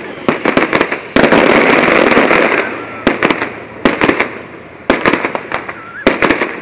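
Fireworks display: clusters of rapid sharp bangs and crackles. A whistle falls in pitch during the first second, and a dense crackling shower follows from about one to two and a half seconds in.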